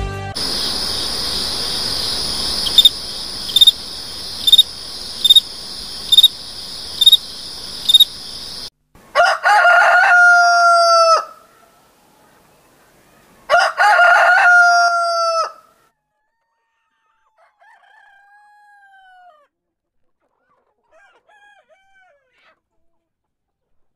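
A rooster crowing twice, each crow about two seconds long with a quick rise and a long held note, followed by two fainter, shorter calls. Before the crows, a steady high hiss with a click about once a second stops suddenly.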